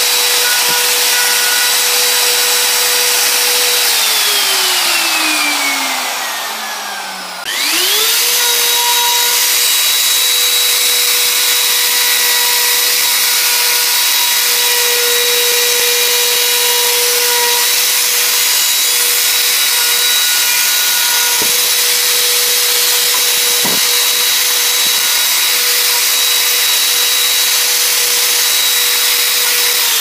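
Electric plunge router running at full speed with a steady high whine while cutting into wood. About four seconds in it is switched off and winds down, falling in pitch. At about seven and a half seconds it is restarted and spins up quickly, then runs steadily until it is switched off and starts winding down at the end.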